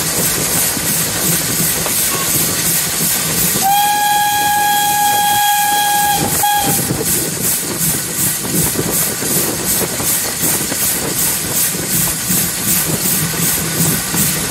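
Steam locomotive whistle, one blast of about three seconds starting a few seconds in, from 0-8-0T tank engine TKp 5485, over the steady rhythmic running noise of the steam-hauled train.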